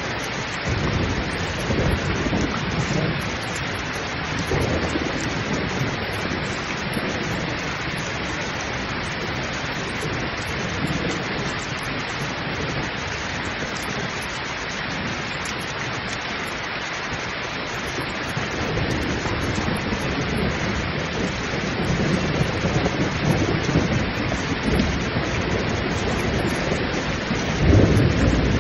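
Heavy rain pouring steadily, with thunder rumbling in the first few seconds and again through the second half, loudest near the end.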